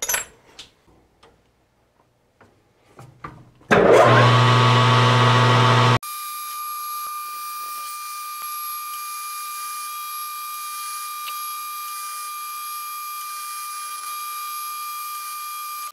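A few light handling clicks, then a 12x36 metal lathe starts and runs with a steady low hum while a drill bit in the tailstock chuck bores out the centre of a steel tie rod end. About six seconds in, the sound cuts abruptly to a quieter, steady high-pitched whine.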